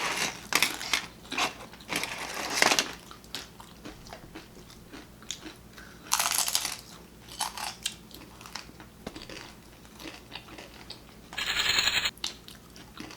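Crunchy fried corn food being bitten and chewed, with bursts of crunching in the first few seconds, again about six seconds in and near the end.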